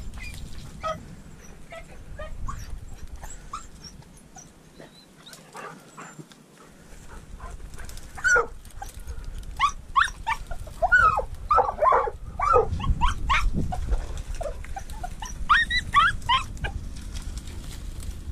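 Hunting dogs yelping and barking excitedly in dense brush while on a mink. The yelps are short and high, scattered at first, then come in rapid clusters in the second half.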